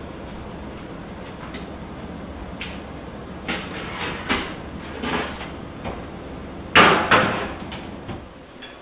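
Kitchen clatter of a metal baking tray and cookware being handled at the stove: a string of knocks and clanks, the two loudest close together near the end, over a steady low hum.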